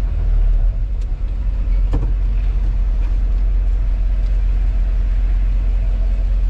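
Truck engine idling with a steady low rumble, with a couple of light clicks about one and two seconds in.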